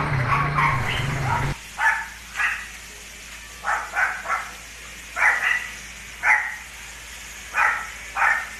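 A dog barking repeatedly, single and double barks about every second. A steady motor hum at the start cuts off suddenly about one and a half seconds in.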